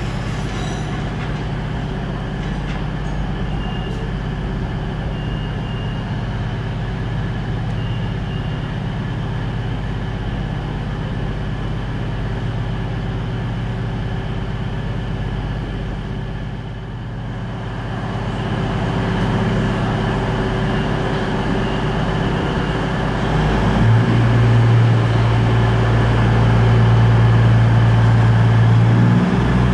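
Diesel train engines running steadily at a station platform, a constant low engine hum. About two-thirds of the way in the sound grows louder, and a stronger, deeper engine note sets in near the end.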